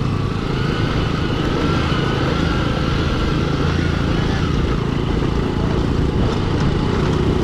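Motorcycle engine running steadily while being ridden along a rough dirt road, with continuous road noise.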